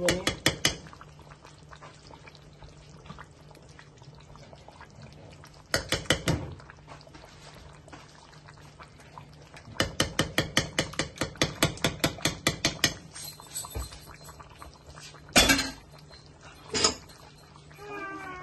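A metal spoon stirring a thick curry in a large metal pot, clinking against the pot's sides in short runs of quick taps, the longest a fast run of about a dozen taps in the middle. Near the end there is one louder sharp knock of metal on the pot, then another lighter one, over a faint low hum.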